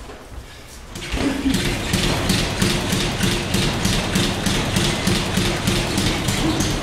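Rapid, even tapping, several taps a second, over a low hum, starting about a second in and holding steady.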